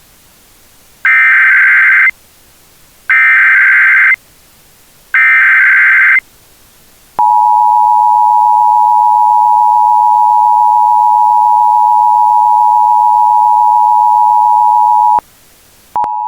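Emergency Alert System tones. Three one-second bursts of the SAME digital header come a second apart, then the two-tone EAS attention signal (853 and 960 Hz together) is held steady for about eight seconds, ahead of a hazardous materials warning.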